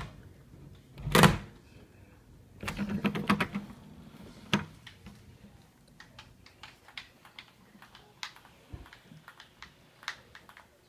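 Handling noise of a phone held in the hand, fingers over the lens and microphone: a loud thump about a second in, a short rustle, then a run of small irregular clicks and taps.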